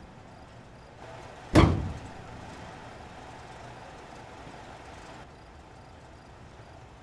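A single loud bang against a pickup truck about a second and a half in, dying away within half a second. A faint steady hum runs under it and stops about five seconds in.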